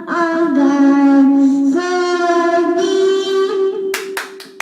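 A child singing two long held notes, the second slightly higher. Hand clapping starts about four seconds in.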